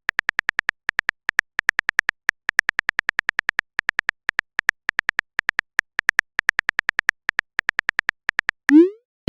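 Typing sound effect of a chat-story app: a fast, uneven string of short digital clicks, one per typed character, ending near the end with a short rising bloop as the message is sent.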